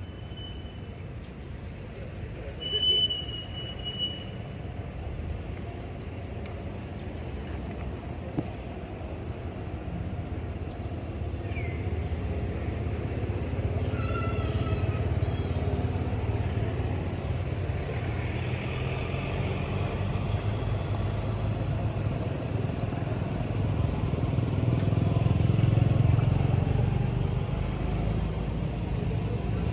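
Low, steady rumble of a motor vehicle engine that slowly grows louder, peaking about 26 seconds in, with a brief high chirp about three seconds in.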